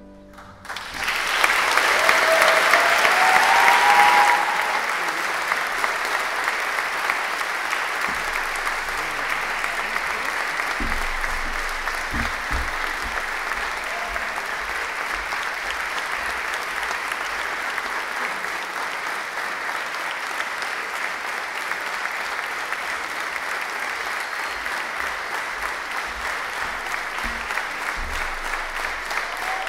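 Concert audience applauding. The clapping breaks out about a second in, is loudest for the first few seconds, then settles into steady applause.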